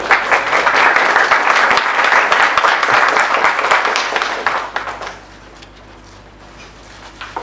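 Audience applauding, dying away after about five seconds.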